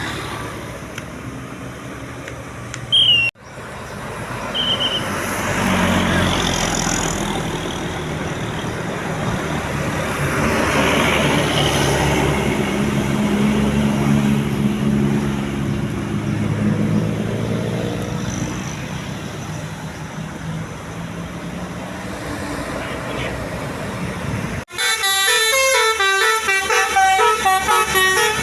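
A large bus drives past with its engine running, the sound swelling and fading over about twenty seconds, after a brief loud high chirp about three seconds in. Near the end a Basuri telolet horn plays a fast, stepping multi-note tune.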